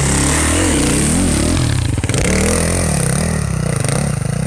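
KTM enduro motorcycle engine revving up and down under load as the bike churns through deep snow, with a brief clatter about two seconds in.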